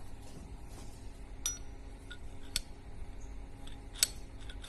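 A few sharp metal clicks and clinks as an aluminium disassembly tool block and a metal camera-head part are handled and knocked together, one with a short ring. The loudest click comes near the end.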